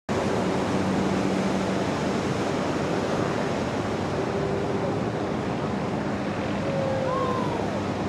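Steady, loud rush of a giant wave breaking and wind over open water, with wind buffeting the microphone.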